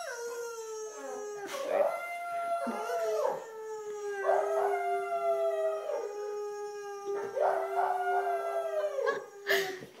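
Boxer dog howling in one long, drawn-out howl held at a steady pitch, with wavering rises and falls of pitch over it, in answer to being coaxed to 'talk'. It breaks off with a short sharp sound near the end.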